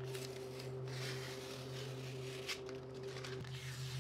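Painter's tape being peeled off a wooden panel: faint rustling with a couple of short rips, over a steady low hum.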